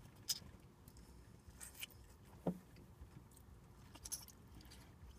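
Quiet car interior with a few faint, brief clicks and rustles scattered through it.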